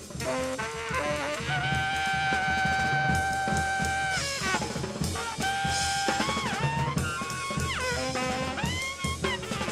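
Background music: a jazzy tune with held, sliding brass-like lead notes over a steady drum-kit beat.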